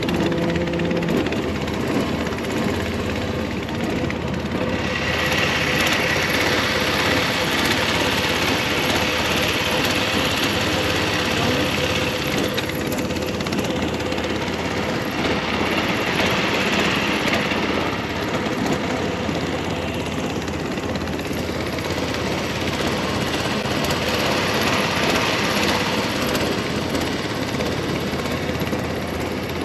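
Motorboat engine running steadily under way, with a hiss that swells and fades three times.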